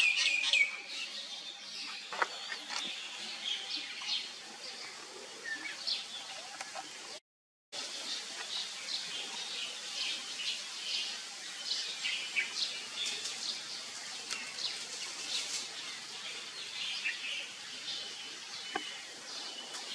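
Forest birds chirping, with many short high calls scattered throughout and a louder burst of calls right at the start. The sound cuts out completely for about half a second roughly a third of the way in.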